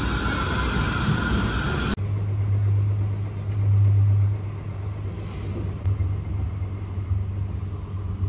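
A tram passing close by, with a steady whine over the noise of the street. About two seconds in it cuts to the steady low hum and rumble heard inside a moving city transit vehicle, swelling briefly a second or two later.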